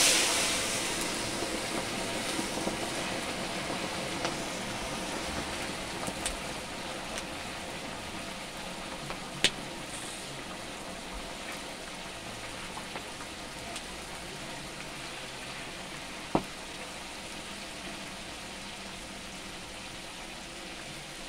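Whole fish frying in a wide pan of hot oil over a wood fire. A loud hiss rises as the fish go into the oil, then eases into steady sizzling, with two sharp pops, one near the middle and one later on.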